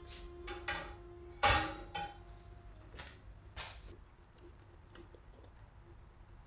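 Wire baking rack set down on a stone countertop: a couple of light knocks, then one loud clatter about a second and a half in and a second one just after. A few softer taps follow.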